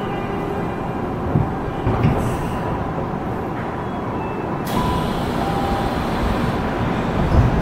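Interior noise of a Tokyu 5000-series subway train coming to a stop at an underground station, with a few low thumps. About two-thirds of the way through there is a sudden hiss as the doors open.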